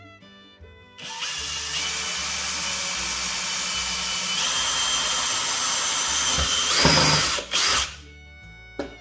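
Bosch drill-driver with a wood drill bit boring a pilot hole in a wooden board, running steadily for about seven seconds; its pitch steps up twice, and it gives a couple of louder bursts near the end.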